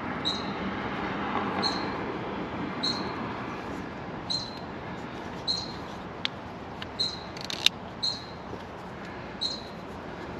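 A bird chirping over and over, one short high chirp about every second. A few sharp clicks sound near the middle, the loudest about three quarters of the way through.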